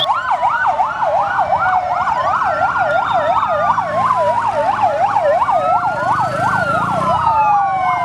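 Emergency-vehicle sirens of the ambulance kind sounding together: a fast yelp sweeping up and down about three times a second, overlaid by a slower rising and falling wail.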